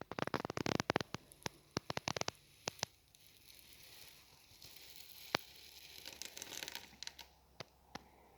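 Packaging being handled during an unboxing: a dense run of sharp crackles and clicks for the first three seconds, then a softer rustling, with a single sharp click about five seconds in and a couple more near the end.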